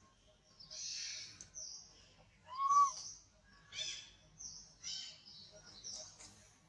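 Infant long-tailed macaque crying: a string of about six shrill squeals and screeches with short gaps. The loudest is one arched, rising-then-falling wail near the middle.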